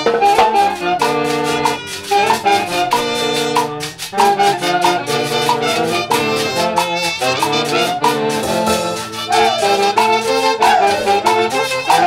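Live orchestra music led by trumpets and saxophones, playing a tune in held chords over a steady percussion beat.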